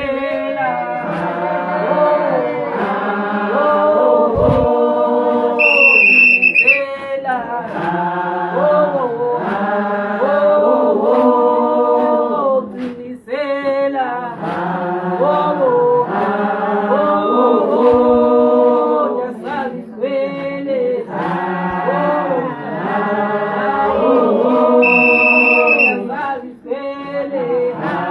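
A group of Ndzundza Ndebele women singing together in a chant-like song without instruments, in sung phrases. Twice a high, shrill held note rings out over the singing for about a second.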